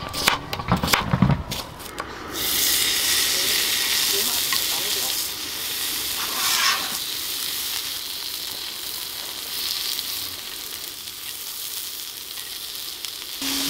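A knife chopping cucumber on a wooden cutting board in quick strokes. About two seconds in, this gives way to pork belly strips sizzling steadily on a hot round griddle pan.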